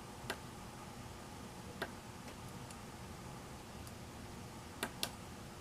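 Four sharp clicks of a small tactile pushbutton on the Dutchtronix AVR oscilloscope clock board, pressed one at a time to step the time setting. The last two come close together.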